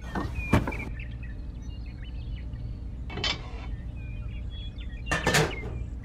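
A few light knocks and brief rustles of handling as a small wicker basket is set down on a wooden toy trailer. The sharpest knock comes about half a second in, with further short knocks and rustles near the middle and near the end, over a steady low hum.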